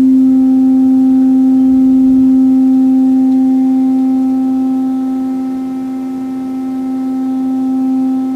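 Synthesizer oscillator's sine wave, a steady tone near middle C, played through a loudspeaker via a clipper module, with faint overtones above it. The clip level is being adjusted, which squares off the wave and adds a brighter, reedier edge. The level sags a little past the middle and comes back up.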